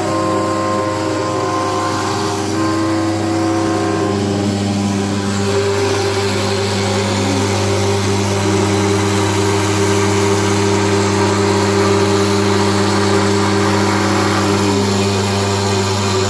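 Desktop CNC router (Sienci Mill One) with a 500 W ER11 spindle, milling a relief into plywood on its final pass. A steady hum runs under several whining tones that shift in pitch about four seconds in and again later as the machine moves along the toolpath.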